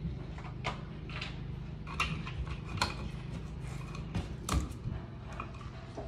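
Hands handling electrical wires at a wall junction box: a scatter of small irregular clicks and scrapes, the loudest about four and a half seconds in.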